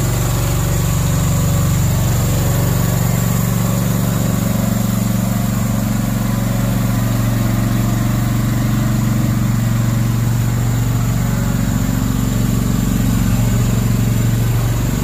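Slanetrac HT1000 tracked mini dumper's engine running steadily at an even pitch as the machine drives along.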